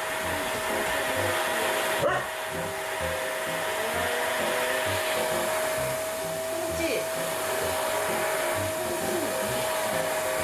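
Pet grooming vacuum running steadily: an even motor rush with a constant whine.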